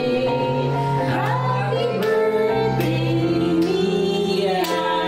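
A birthday song sung by women's and children's voices over instrumental music with a steady beat.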